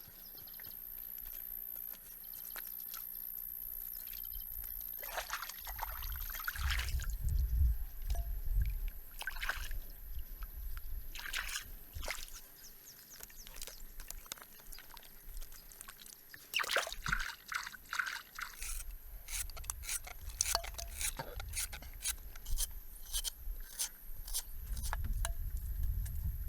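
Water being handled: small splashes and trickling, with scattered sharp clicks and knocks that come thicker near the end.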